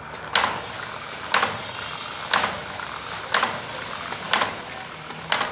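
Automatic wire cutting and bending machine running, with a sharp clack about once a second over a steady mechanical hum, one stroke per turn of its hook-forming cycle.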